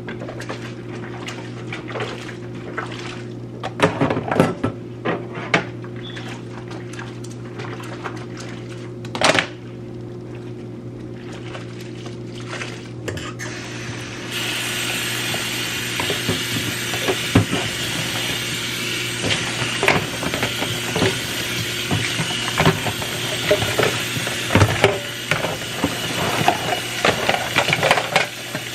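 Dishes and containers clattering and clinking over a steady low hum; about halfway a tap starts running and the water keeps flowing under the clatter.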